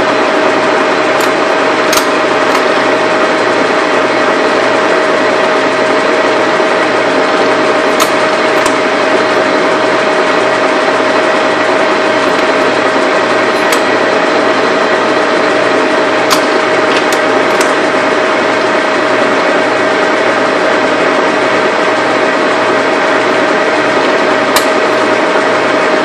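20-inch by 180-inch Lodge & Shipley engine lathe running under power, a steady loud mechanical run with a constant whine, and a few light clicks here and there.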